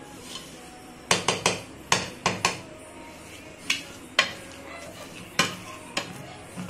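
A steel spoon stirring sugar into cooked black rice in a pressure cooker pot and clinking against the metal pot. There is a quick run of clinks about a second in, then single clinks every second or so.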